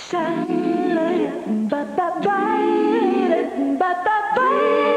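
Music: a wordless melody sung or hummed in long held notes, changing pitch every second or so.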